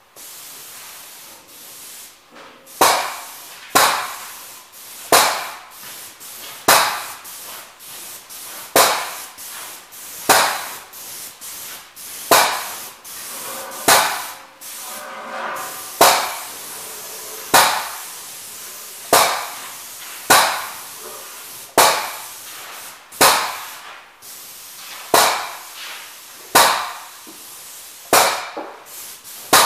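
Paint spray gun hissing steadily while coating a steel beam. Over it, a loud sharp bang repeats about every second and a half.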